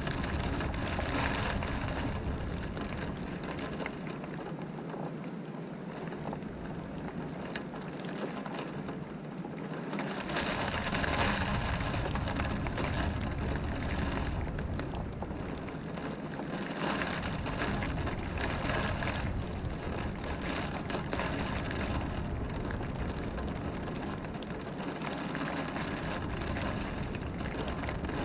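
Wind-driven rain beating on a window, a steady hiss that swells in gusts about ten seconds in and again a few seconds later, with a low rumble of wind during the stronger gusts.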